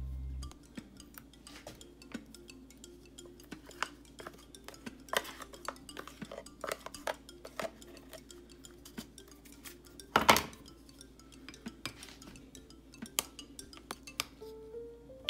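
Plastic spoon scraping wet dog food out of a plastic tub and clinking against a ceramic bowl: many small clicks and scrapes, with one louder knock about ten seconds in.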